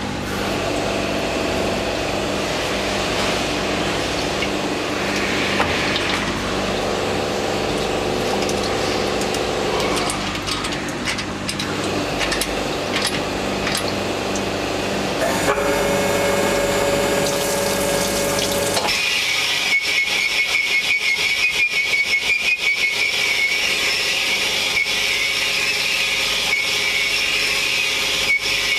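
A metalworking machine running steadily, its tone shifting several times. About two-thirds of the way through it changes to a higher whine with rapid, fast ticking.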